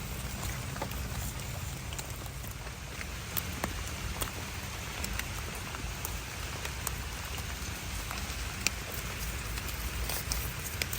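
Steady rain falling, with many scattered sharp taps of individual drops hitting close by and a low rumble underneath.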